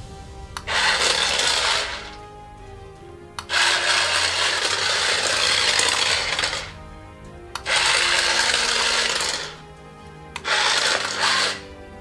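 Battery-powered remote-control toy pod with its small motor and plastic wheels running on a tile floor in four spurts, one to three seconds each, starting and stopping sharply.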